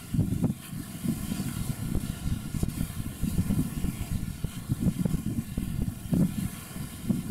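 Wind buffeting the microphone: an uneven low rumble that swells and drops in gusts, with a faint steady hum underneath.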